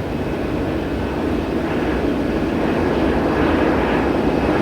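Jet aircraft engines running: a steady, deep rushing noise that grows a little louder. This is likely the B-52 flight-test bed carrying a Pratt & Whitney JT9D turbofan in place of two of its engines.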